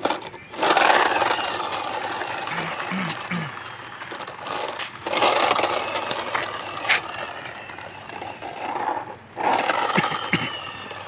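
Plastic toy dump truck rolling over rough concrete, its hard plastic wheels scraping and rattling, in three separate runs with short gaps between them.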